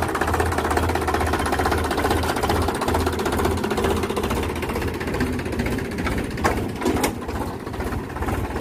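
Diesel tractor engine running steadily with a fast low throb, as the tractor moves off towing a disc harrow. A couple of sharp knocks come about six and a half to seven seconds in.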